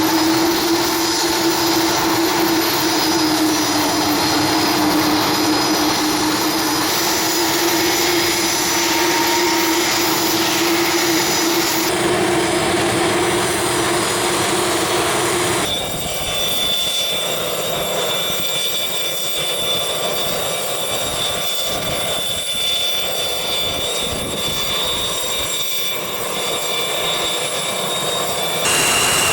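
Twin turbofan engines of a Cessna CitationJet CJ1 business jet running steadily. About halfway through, the sound changes abruptly to a slightly quieter run with a high, steady whine.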